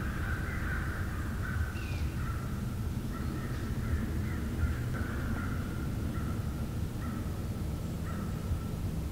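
A bird calling over and over in a run of short calls, with a steady low rumble underneath.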